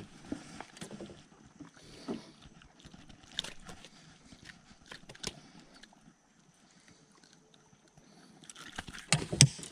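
Scattered knocks and taps as a hooked smallmouth bass swings against the boat's console and is grabbed and handled, with a louder flurry of knocks about nine seconds in.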